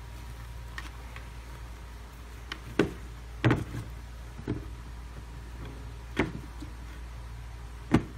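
Handling noise: a knit sneaker bumped against and set down on its cardboard shoe box, giving about six soft knocks at uneven intervals, the loudest near the end. A steady low hum sits underneath.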